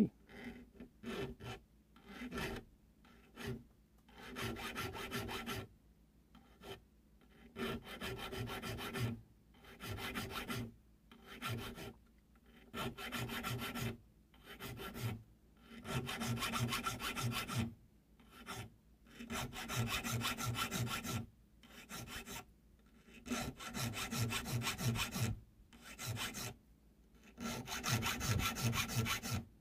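Round chainsaw file rasping back and forth in the notches along the spine of metal slip-joint knife liners clamped in a vise, filing divots for the spine file work. The strokes come in runs of a second or two with short pauses between, and a faint ringing tone sounds under the rasp.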